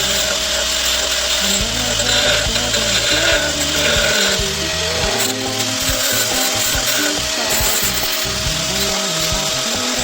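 A power tool runs steadily under background pop music.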